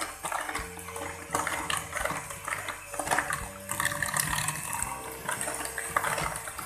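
Electric hand mixer running steadily, its twin beaters whisking a thin liquid batter of egg and sugar in a plastic bowl: a constant motor whine over wet, splashy whisking.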